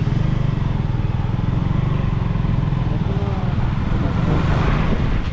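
KTM motorcycle engine running under throttle as the bike pulls away and rides on, a steady, loud low engine note.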